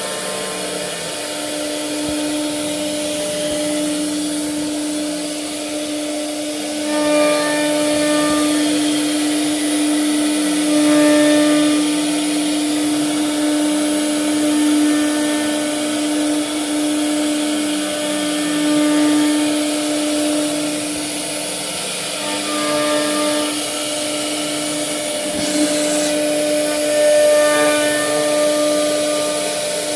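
CNC router spindle running with a steady high-pitched whine while cutting fluting grooves into wood. The noise swells and eases every few seconds as the bit moves along the cut, with a lower motor tone wavering underneath.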